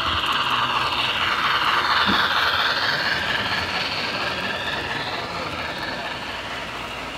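Model train running past on its track: a steady rolling whir from the locomotive and the passenger cars' wheels that grows louder about two seconds in, as the engine comes by, and then slowly fades as the cars pass.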